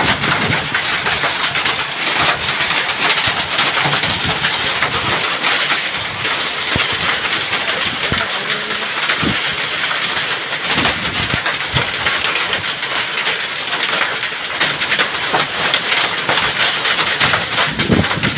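Hailstorm: hail and heavy rain falling steadily as a dense hiss, with many sharp ticks of hailstones striking.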